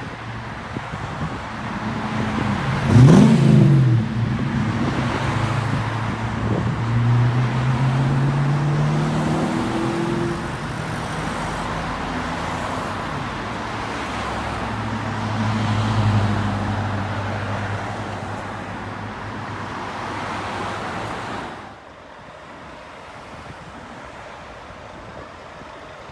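Fire truck engine accelerating, rising in pitch through the gears over steady road noise. A short, loud rising-and-falling tone about three seconds in, and the sound drops off sharply near the end.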